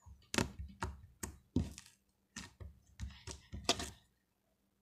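Slime being squeezed and kneaded by hand, giving a quick irregular series of small pops and clicks, about three a second, stopping about four seconds in.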